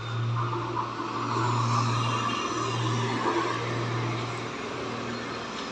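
A motor hums steadily at one low pitch, dropping out briefly twice, over the rushing noise of road traffic.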